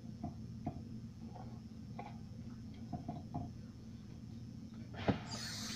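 Light, scattered clicks and taps as oiled vegetables are handled in a metal bundt pan, over a steady low hum. About five seconds in there is a single knock, then a faucet starts running.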